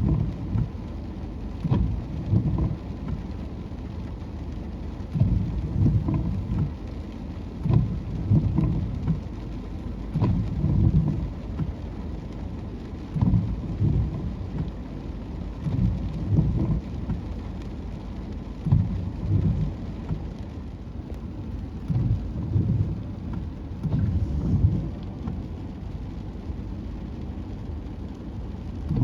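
Wind buffeting the microphone in rumbling gusts every second or two, over a steady rushing noise.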